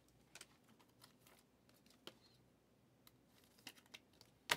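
Faint, scattered clicks and taps of glossy trading cards being handled, slid and flipped through a stack, with one sharper click near the end.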